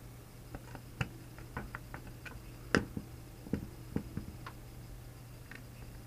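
Small irregular clicks and taps of screws being started into a PC case fan's mounting holes with a screwdriver, the sharpest click about three seconds in.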